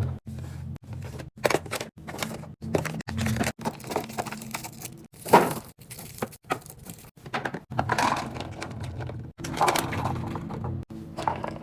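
Kitchen items and packaging clattering, knocking and crinkling as they are unpacked and put away, many short sharp knocks in quick succession. A steady low bass line of background music runs underneath.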